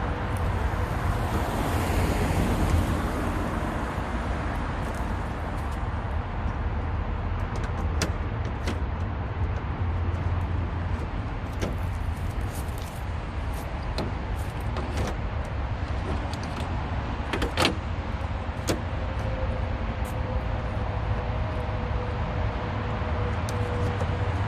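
Scattered sharp clicks and taps of plastic grille parts being handled and fitted onto a car front, over a steady low rumble.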